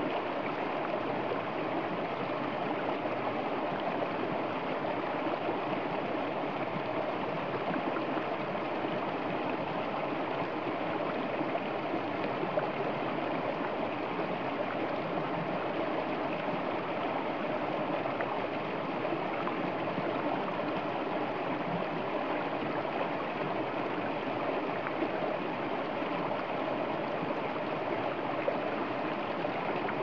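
Shallow stream flowing over rocks: a steady rush of running water.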